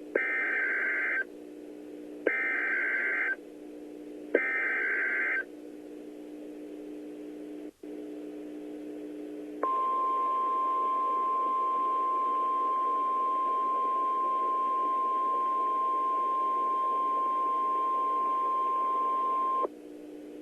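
Emergency Alert System header: three one-second bursts of shrill digital data screech, about two seconds apart (the SAME header sent three times). After a pause, a single steady alert tone, the National Weather Service's 1050 Hz warning alarm, holds for about ten seconds and cuts off. A steady low hum runs underneath.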